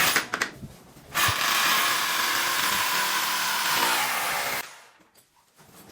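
Workshop power tool running in one steady burst of about three and a half seconds, starting about a second in, after a few knocks.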